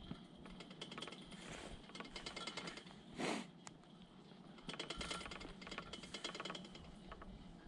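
Quiet chairlift ride: faint, rapid ticking and rattling from the moving chair and cable, with a short whoosh about three seconds in.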